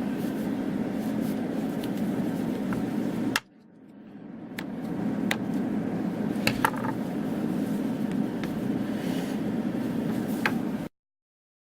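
Heat gun running with a steady low whir, with scattered clicks and taps from handling the rod and plastic. The whir cuts out about three and a half seconds in and builds back up over a second or so.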